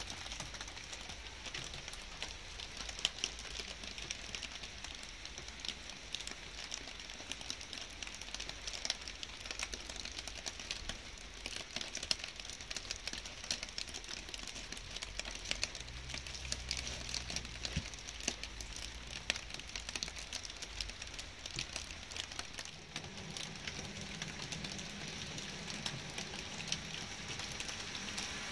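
Light rain falling, a steady hiss dotted with many sharp ticks of individual drops close by.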